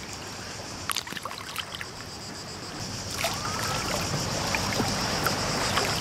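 Seawater lapping and trickling around a swimmer close by, with small scattered splashes and drips as she ducks her masked face in and swims off face-down.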